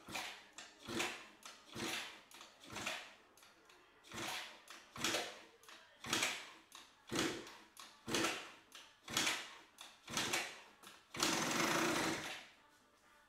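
MBK Booster scooter's two-stroke engine, freshly fitted with an Airsal 70cc cylinder, being kick-started over and over at about one kick a second. Each kick cranks the engine briefly, and it does not catch and run. One longer burst comes near the end.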